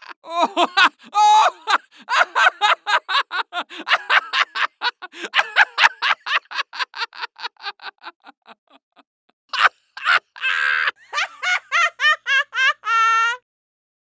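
A man laughing crazily, a long run of rapid ha-ha pulses, about five a second, that fades away after about eight seconds. A drawn-out breathy sound follows, then a fresh burst of laughter that ends on a held, pitched note and cuts off.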